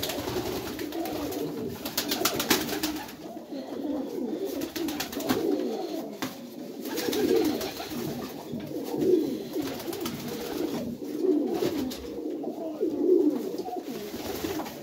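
Many domestic pigeons, satinettes among them, cooing together in overlapping waves, with a flurry of wing flapping during the first few seconds as birds take off and land.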